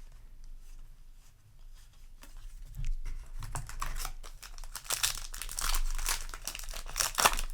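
Foil booster pack wrapper crinkling and tearing as it is opened, with trading cards handled. It is quiet for the first couple of seconds, then dense crackling from about halfway on.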